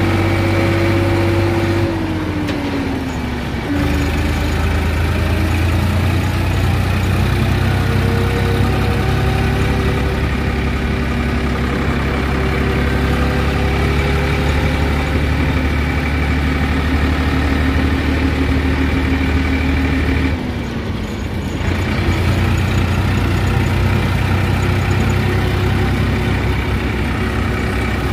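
Massey Ferguson 5245 tractor's diesel engine running steadily under way, heard from the driver's seat. The engine note drops briefly about two seconds in and again about twenty seconds in, then picks back up.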